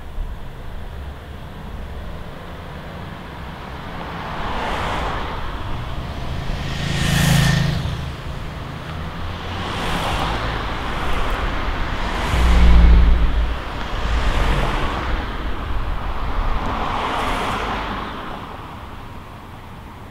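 Street traffic: cars passing by close, one after another, about six in twenty seconds, each rising and fading. The loudest, a little past halfway, carries a deep rumble.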